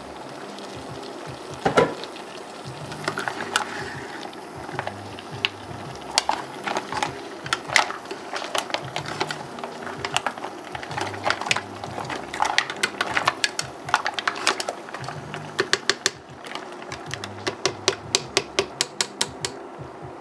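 Green-lipped mussel shells clacking against one another and the metal pot as they are stirred with a spoon. There is a louder knock about two seconds in and a quick run of clicks near the end. Soft background music plays underneath.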